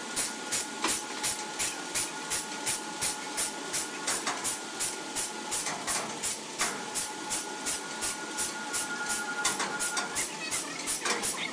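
Sawmill machinery running with an even clatter about three times a second under a faint steady high whine.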